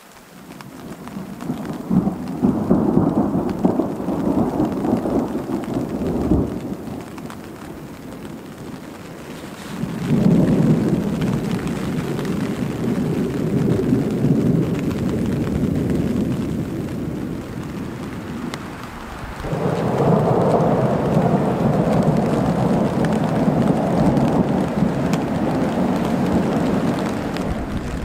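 Thunderstorm: heavy rain with thunder rumbling, in three long stretches that change abruptly about 10 and 19 seconds in.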